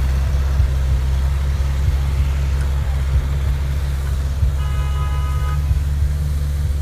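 Santana 88 Especial 4x4's engine running at a steady low crawl as it climbs a muddy, rutted track, with small knocks from the drivetrain and suspension. About four and a half seconds in, a horn toots once for about a second.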